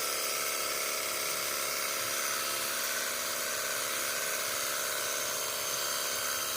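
Cordless battery-powered pressure washer running steadily while spraying: the small electric pump motor hums under the hiss of the water jet.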